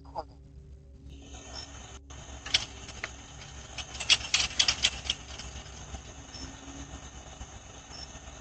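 Outdoor sound through a doorbell camera's microphone: a steady hiss with a few sharp clicks, then a quick run of clicks and rattles about four to five seconds in, as a bicycle is handled and wheeled away.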